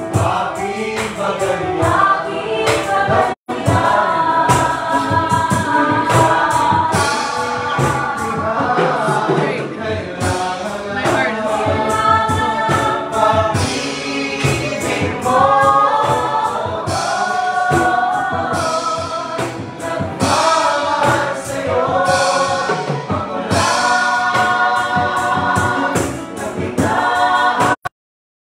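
A group of restaurant cooks and waiters singing together in chorus, a lively group song that carries on throughout. The sound cuts out briefly twice, about three seconds in and near the end.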